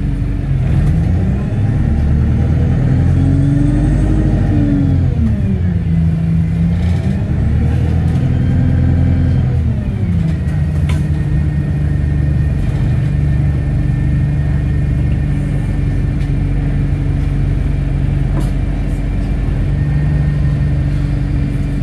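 Bus engine heard from inside the passenger saloon. It revs up as the bus pulls away, dips, revs up again, then falls about ten seconds in to a steady idle.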